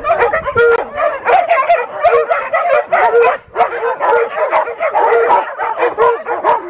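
A large pack of dogs barking all at once: a dense, unbroken chorus of many short, overlapping calls from different dogs.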